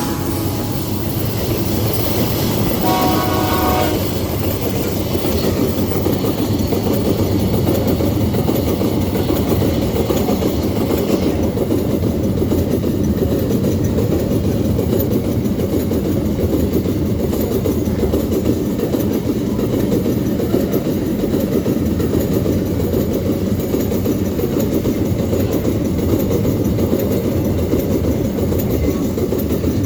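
Empty steel ore wagons of a long freight train rolling by on a curve, a steady rumble of wheels on rail. A short blast of the locomotive's horn comes about three seconds in.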